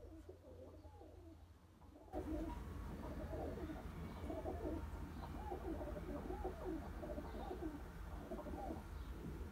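Young homing pigeons cooing, several birds' low, repeated coos overlapping. The cooing gets louder about two seconds in, with more background hiss.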